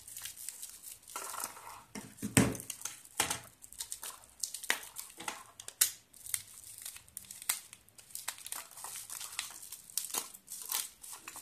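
Crinkling and rustling packaging as a wristwatch is unwrapped and handled, with a few sharper knocks along the way, the loudest about two and a half seconds in.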